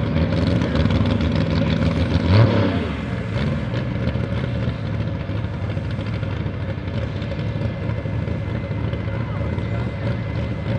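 Classic modified pulling tractor's engine running at idle after its pull, with a brief rev about two seconds in.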